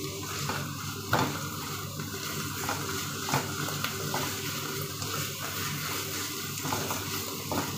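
Minced pork, onion and mushroom sizzling in a frying pan as a spatula stirs them, with occasional knocks and scrapes of the spatula against the pan. The pork is being sautéed until it browns a little.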